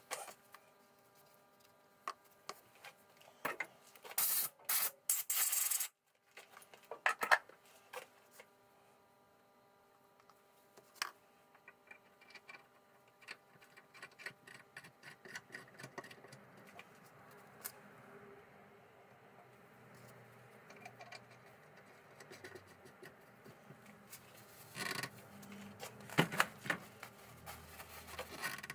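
Hand work on a small steel pin clamped in a cast-iron bench vise. A few loud hissing bursts come about five seconds in, followed by quieter rubbing and scraping strokes. Near the end there are brisk rubbing sounds as a tissue wipes the part.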